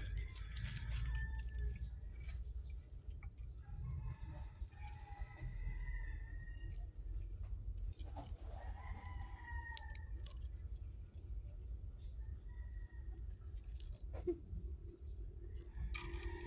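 Small birds chirping over and over in quick, short, high chirps, with a rooster crowing a few times.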